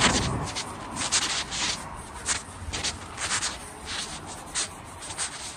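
Footsteps of a person walking on a paved sidewalk, heard close to the microphone as short, crisp scuffs about two or three a second, with some rubbing from clothing or the handheld camera. A low traffic rumble fades out in the first half second.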